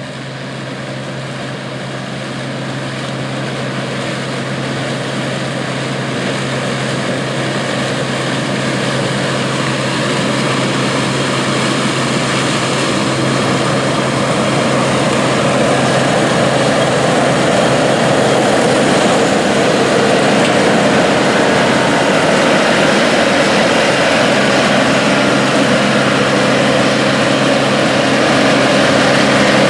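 International 815 combine harvesting corn: its engine and threshing machinery running steadily with a constant low hum, getting gradually louder throughout.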